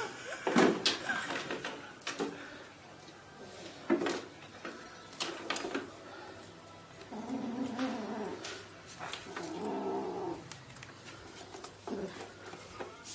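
A kitten playing with a small toy on a hard floor: scattered knocks, scuffs and rustles as it bats and drags the toy. Two longer pitched sounds come about seven and nine seconds in.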